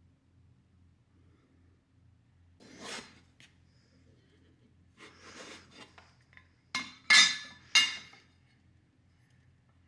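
Hard objects being handled and set down: a soft knock, a rustle, then a quick run of sharp clinks and clatters.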